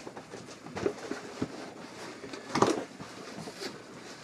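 Long cardboard guitar box being handled: scattered rubs, scrapes and light knocks of cardboard, the loudest a short scrape about two and a half seconds in.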